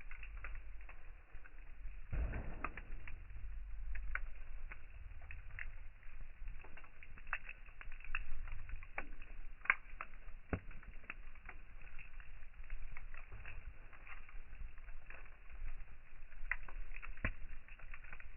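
Wood campfire crackling, with many sharp irregular pops and snaps over a low rumble.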